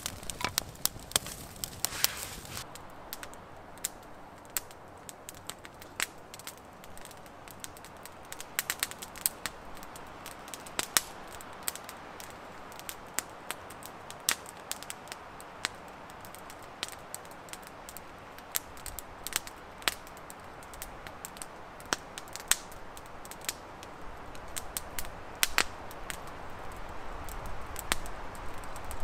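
Campfire of freshly lit split logs crackling, with many irregular sharp pops and snaps over a soft steady hiss.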